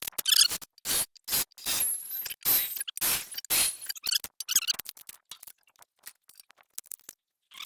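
Irregular short scrapes and clinks of metal being handled at a workbench, a busy run of them over the first four seconds or so, then fewer and fainter.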